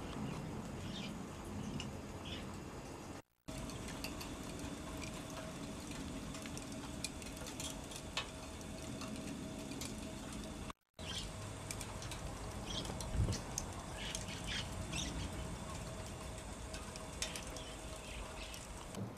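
Faint outdoor ambience: a low steady hum under scattered short high chirps of small birds, with a single soft thump about two-thirds of the way through. The sound cuts out completely for a moment twice.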